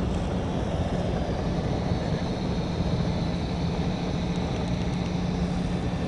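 SB7 spirit box sweeping through radio frequencies, giving a steady hiss of white-noise static with a low steady hum underneath.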